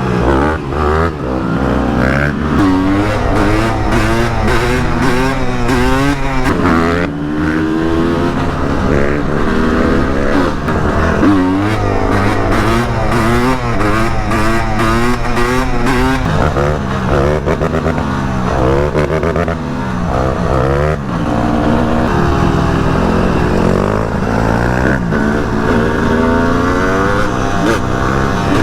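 2003 Honda CR250's single-cylinder two-stroke engine being ridden hard, revving up and dropping back again and again as the rider accelerates and shifts.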